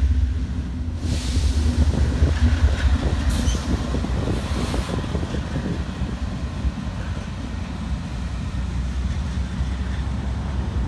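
Several Norfolk Southern diesel locomotives running past, their engines a steady low rumble. Brief hissing comes and goes in the first five seconds.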